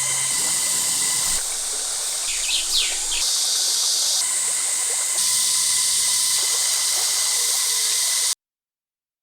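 Summer cicadas droning steadily over the rush of a stream, with a bird giving a few quick chirps about two and a half seconds in. The sound cuts off abruptly near the end, leaving silence.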